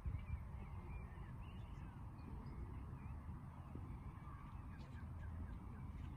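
Several small birds chirping in short, frequent calls over a steady low rumble.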